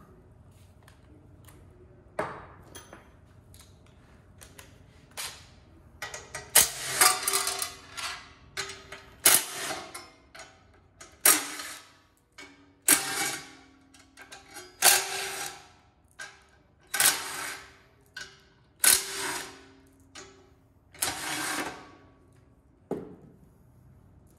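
Cordless drill running in about eight short bursts, roughly two seconds apart, as screws on an aluminium oil pan are driven, with light taps and clicks before the first burst.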